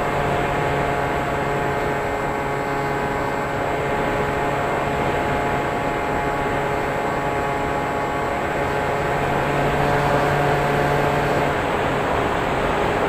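An FPV quadcopter's electric motors and propellers whine steadily over a rush of air noise, with a shift in pitch about eleven seconds in.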